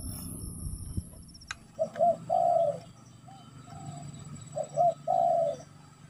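Spotted dove cooing twice, each call two short notes followed by one longer, drawn-out coo.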